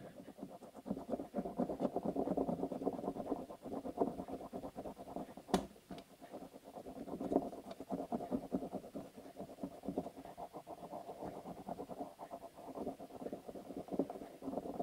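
Rapid back-and-forth scribbling over notebook paper laid on a metro token, taking a rubbing of it: a fast, steady run of scratchy strokes. One sharp click a little past halfway.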